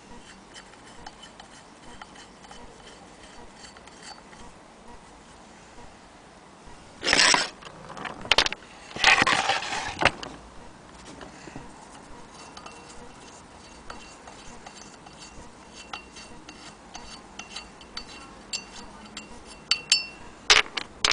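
Cast-iron wheel of a Willcox & Gibbs hand crank unit spinning, with a faint rhythmic metallic ticking and light squeak as it turns. A few louder metallic clatters break in about seven and nine seconds in and again near the end.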